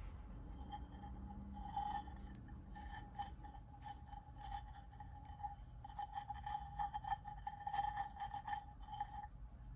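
A beaded kaleidocycle of glass seed beads turned and flexed between the fingers: a run of small clicks and rustles of beads against beads, starting about a second and a half in and stopping shortly before the end. A faint steady high tone sounds underneath.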